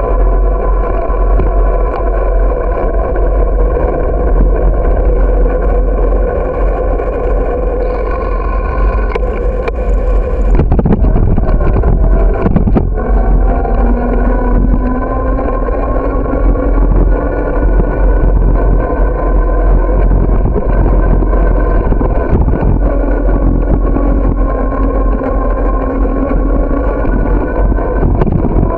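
Riding noise from a camera mounted on a moving bicycle: wind rumble on the microphone under a steady droning hum. A couple of jolts come about a third of the way in, as the bike rolls onto the paved path.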